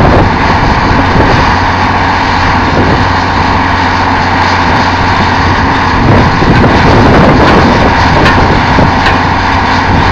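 Truck-mounted drill rig running steadily and loudly while drilling, a continuous engine and machinery drone.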